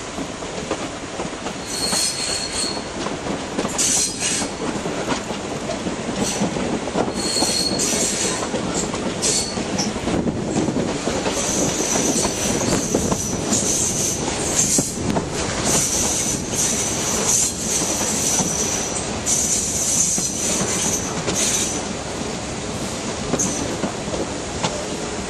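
Train wheels squealing against the rails on a curve, the high squeal coming and going over the steady rumble and rattle of the moving coaches. The squeal is most continuous through the middle of the stretch.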